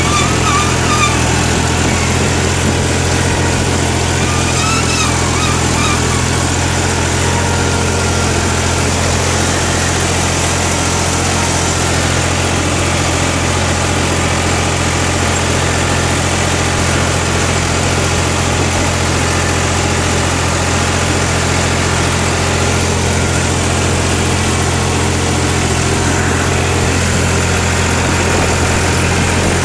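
Al-Ghazi tractor's diesel engine running steadily, heard from the driver's seat as the tractor drives, a constant low drone with no change in speed.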